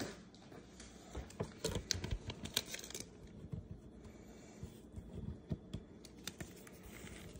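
Baseball trading cards handled on a tabletop: light irregular clicks, taps and scrapes as a fingertip presses a card, slides it on the surface and lifts it. The clicks are thickest in the first few seconds, with a few more later.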